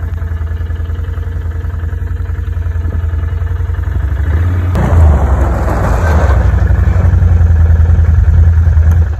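2013 Can-Am Outlander 500 ATV engine running, then revving up about five seconds in with a brief rush of noise, and running louder after that, as it sets off on a test of newly repaired front brakes.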